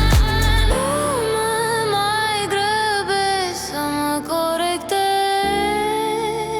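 Cinematic electro-pop music with a female voice singing a wordless, sliding melody. The thumping bass beat drops out under a second in, and a warm, sustained bass returns near the end.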